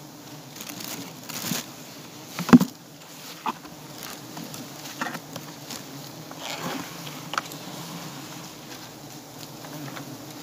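Giant honey bees buzzing around their comb, a steady hum all through. A sharp knock about two and a half seconds in is the loudest sound, with a few lighter taps and rustles scattered after it.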